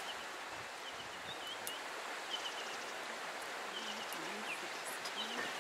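Bushveld ambience: a steady rustling hiss with small bird chirps recurring throughout.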